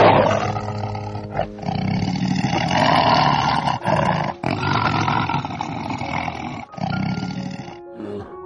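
Tiger roaring: a long, rough roar that starts suddenly, with a few brief breaks, and fades out near the end.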